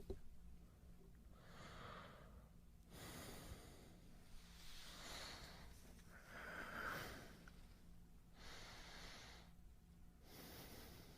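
A man breathing softly and slowly close to the microphone, several unhurried breaths in and out, faint.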